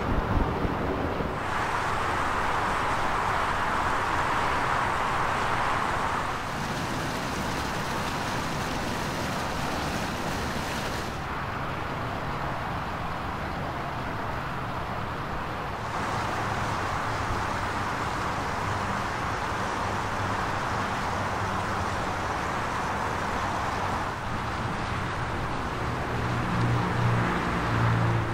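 Ferrari F12tdf's 6.3-litre V12 idling steadily, with no revs. Its low idle note grows stronger near the end.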